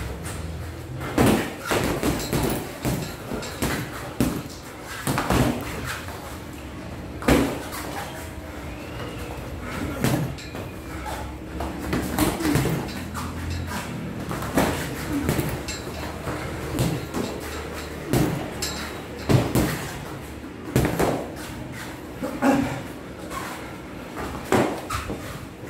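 Boxing gloves smacking against gloves, arms and padded headgear during sparring: irregular sharp thuds, sometimes two or three in quick succession, with pauses between the exchanges.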